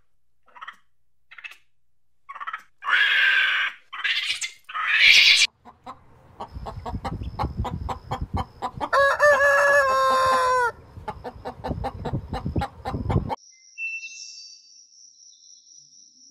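A flock of chickens clucking, with a rooster crowing once about nine seconds in, a long call that steps and bends in pitch. It is preceded by a few short animal calls in the first five seconds. After a sudden cut near the end, only a faint steady high-pitched buzz remains.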